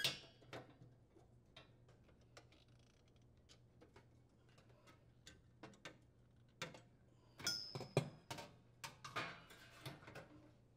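Faint, scattered clicks and light metal taps as a gas oven's broil burner tube and its igniter bracket are handled and screwed into place, with a mostly quiet stretch in the middle. A short high squeak sounds about two thirds of the way through.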